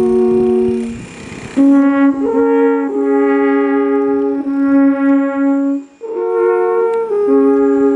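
Alphorns playing together, a slow tune of long held notes in harmony, with short breaks for breath about a second in and again near six seconds.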